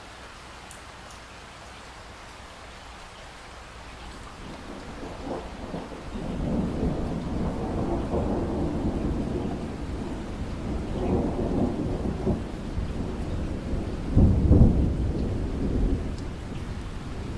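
Steady rain falling, with a roll of thunder that swells in from about four seconds in, surges several times, reaches its loudest peak about three-quarters through, then begins to fade.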